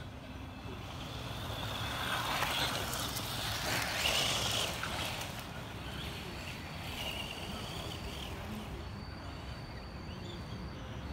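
Electric radio-controlled buggies running on a dirt track: a motor whining and tyres scrabbling over loose soil. The sound swells as a buggy passes close, loudest about two to five seconds in, then a fainter whine carries on farther off.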